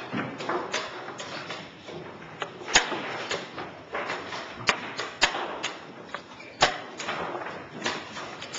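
Quick blitz-chess play: sharp knocks and clicks of chess pieces being set down on the board and the chess clock being punched, coming every fraction of a second to a second or so.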